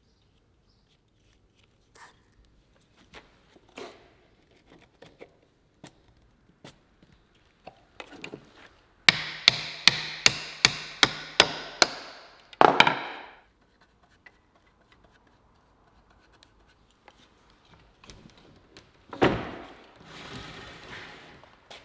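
Faint taps and rubs as glue is spread on wooden dominoes, then about nine seconds in a quick run of about ten strikes of a soft-faced mallet, about three a second, driving the glued dominoes into the pine rail's mortises, ending with one heavier blow. Near the end, a short scraping rub of wood on wood as the rail is fitted into the stile.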